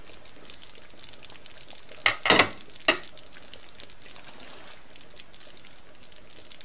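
A large steel pot of kadhi (yogurt and gram-flour curry) simmering with a steady soft bubbling, fully cooked after about three hours on low heat. A quick few sharp clinks of cookware come about two seconds in, and one more a moment later.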